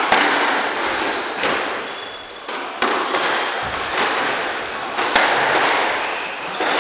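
Squash ball being struck by rackets and hitting the court walls during a rally: sharp cracks about a second or more apart, each echoing in the enclosed court, with brief high squeaks between them.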